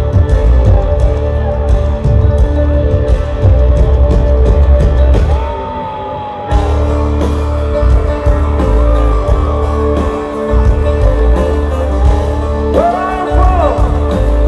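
Live country-rock band playing through a concert PA: heavy drums and bass with electric guitar. The drums drop out briefly about five and a half seconds in, then kick back in.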